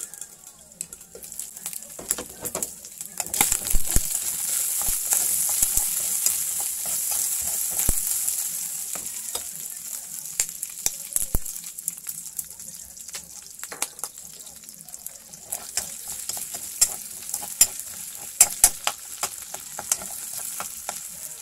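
Pork cubes sizzling in oil in a metal wok, the sizzle swelling about three and a half seconds in and easing off after about eight seconds. Sharp clicks and scrapes of a metal utensil against the wok come through as the meat is stirred, most often in the later part.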